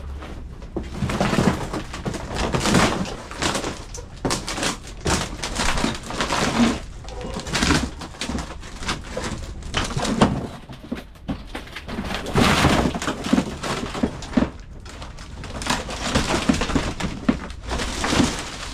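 Irregular knocking, scraping and crunching that goes on without a break, with no steady tone: things being handled, broken and shifted around.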